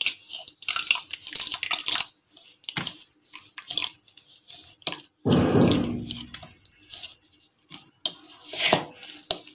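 Water poured from a glass into semolina in a bowl, with a louder stretch of pouring about five seconds in, while a metal spoon scrapes and clicks against the bowl, stirring the mix into a paste.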